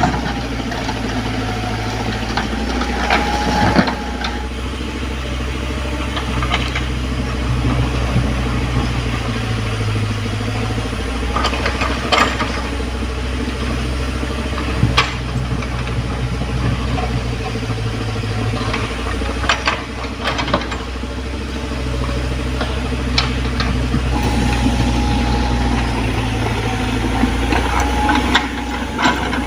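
Komatsu PC75UU mini excavator's diesel engine running steadily, its low note swelling and easing every few seconds as the hydraulics take load, with scattered sharp metallic clanks and knocks.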